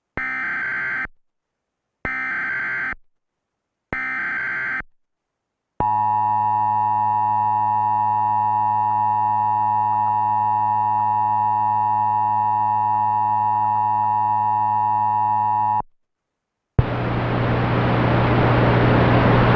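Emergency Alert System signal: three short bursts of SAME header data, a harsh digital screech about a second each and two seconds apart, then the EAS two-tone attention signal held for about ten seconds. After a second's pause, a loud hiss with a low hum begins near the end.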